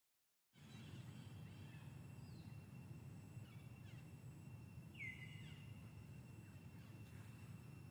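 Faint outdoor ambience: a low steady hiss with a thin steady high tone, starting from dead silence about half a second in, and one short high squeak dropping in pitch about five seconds in.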